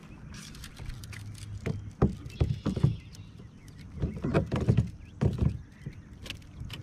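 Irregular taps and thumps on a plastic fishing kayak while a just-landed bluegill is handled and unhooked over the deck, in two clusters of knocks.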